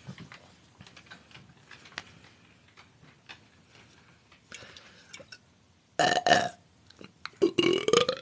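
A woman belching twice near the end, loudly: first a short burp, then a longer one that rises in pitch. Before them there are only faint small clicks and taps.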